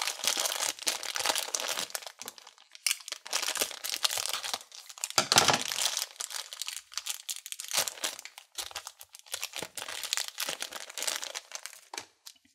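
Thin clear plastic bag crinkling irregularly as hands pull it open to get a small vinyl toy out. The crinkling dies away just before the end.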